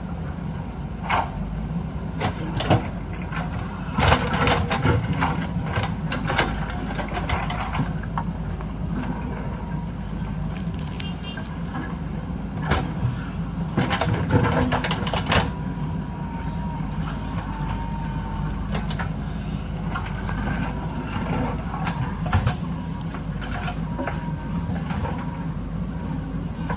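Diesel engine of a heavy earthmoving machine running steadily under load, with repeated knocks and scrapes of a steel bucket digging into rock and soil.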